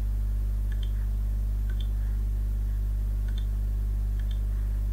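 Steady low electrical hum in the recording, with a few faint computer-mouse clicks spread through it.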